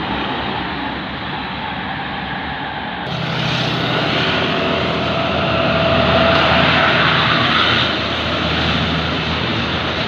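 A tour bus engine pulling uphill past at close range, a steady drone that swells from about three seconds in, is loudest in the middle and eases near the end.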